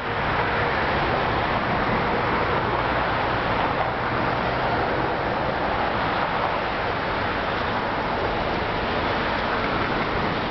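Steady rushing outdoor noise with no distinct events, like wind over the microphone or distant traffic.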